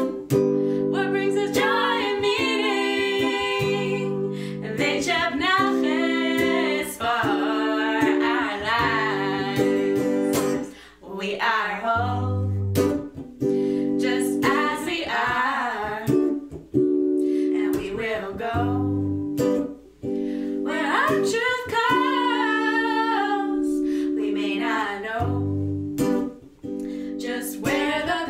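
Two women singing a song over a strummed electric guitar, the voices holding long, wavering notes above steady chords, with short breaks between phrases.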